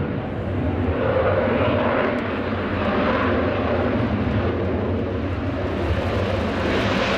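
Military jet engines running on the airfield: a steady rushing roar that swells near the end.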